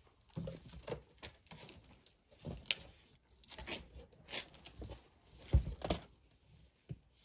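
Large cardboard box being opened: the lid scraping and rubbing against the box walls as it is lifted off, in irregular rustles, with a heavier thump a little past halfway.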